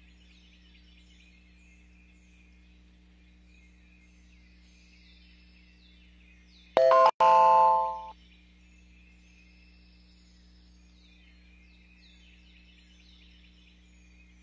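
Songbirds chirping faintly and steadily in the background over a low electrical hum. About seven seconds in, a loud electronic chime sounds in two parts, a brief tone and then a longer tone that fades out after about a second.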